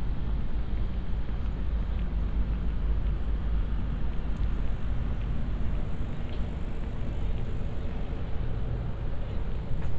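Steady outdoor city background noise with a deep, constant low rumble and no single standout event, picked up on a walking binaural recorder.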